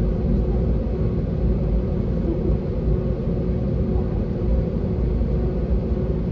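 Steady low rumble of a jet airliner's engines at ground idle heard inside the cabin while the plane taxis, with a faint steady hum over it.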